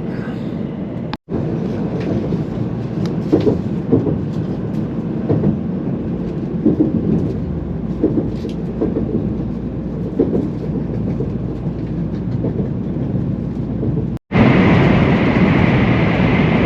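Shinkansen bullet train running at speed, heard from inside the carriage: a steady low rumble with scattered light knocks. Near the end the sound breaks off for an instant and comes back louder and hissier.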